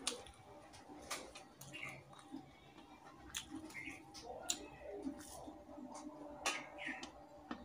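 Quiet sounds of eating by hand: chewing a bite of a fritter that has gone soft, then fingers mixing rice on a bronze plate, with scattered soft sharp clicks and squishes.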